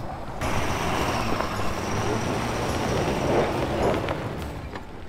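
A vehicle rolling close by on an icy, snow-covered road: tyre noise over a low engine rumble. It rises sharply about half a second in and fades near the end.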